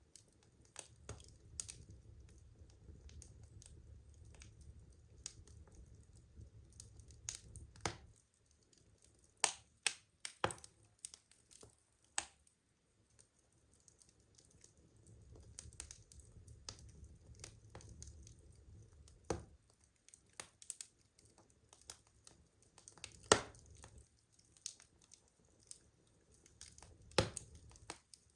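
Burning wood logs crackling: irregular sharp pops and snaps, the loudest a little past two-thirds through and near the end, over a soft low rumble that comes and goes.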